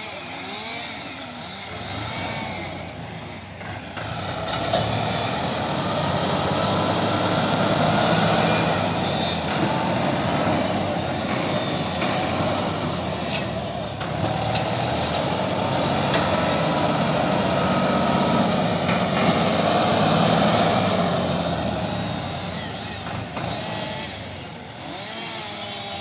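Diesel farm tractor engine working hard as the tractor moves over rough cleared ground. It grows louder about four seconds in, runs strong through the middle and eases off near the end.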